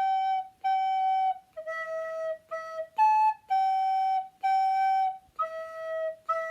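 Soprano recorder playing the melody G, G, E, E, A, then G, G, E, E, in clear, steady separate notes; the second E of each pair is short.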